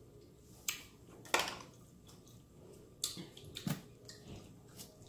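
Close-up eating sounds of mussels being eaten: a handful of short, wet mouth smacks and clicks, the loudest about a second and a half in and others around three to five seconds.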